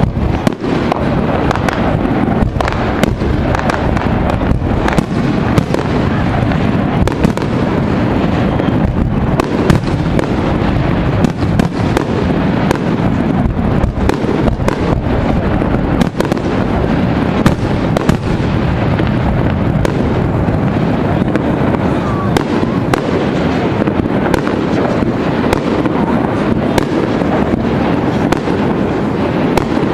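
Aerial fireworks display: shells bursting in rapid, irregular succession, many sharp bangs and crackles over a continuous low rumble.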